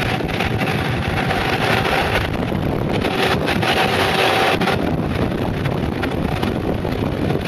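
Mountainboard's air-filled tyres rolling fast on asphalt, with wind rushing over the microphone: a steady, loud rushing noise with a faint hum that comes and goes.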